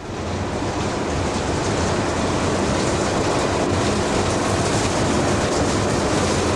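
Steady running noise inside a locomotive cab: a low rumble with a rushing hiss over it. It rises in over the first half second, then holds level.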